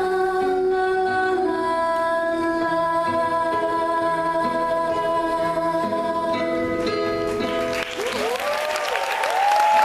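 A song with long held sung notes plays for the dance, stopping about eight seconds in, and the audience breaks into applause and cheers.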